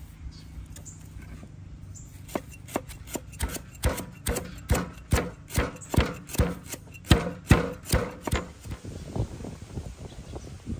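Sharp, rhythmic strikes, about two to three a second, beginning about two seconds in and growing lighter near the end: kroeung (lemongrass spice paste) ingredients being cut and pounded by hand.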